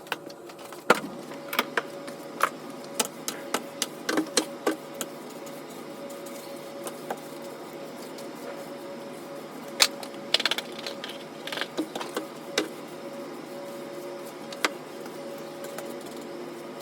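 Irregular sharp clicks and light knocks of things being handled during household cleaning, in two busy clusters with a quieter stretch between, over a steady low hum.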